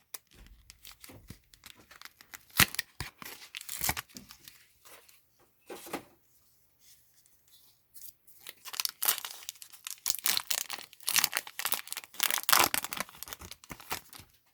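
A Pokémon card booster pack's foil wrapper being torn open and crinkled, with scattered rustles at first and a dense stretch of crackling tearing in the later seconds.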